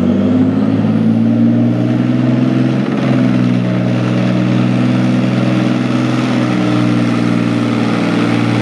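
Leopard 2 tank's V12 diesel engine running hard under heavy load as it drags a tractor-pulling sled. The engine note eases slightly in pitch over the first few seconds, then holds steady.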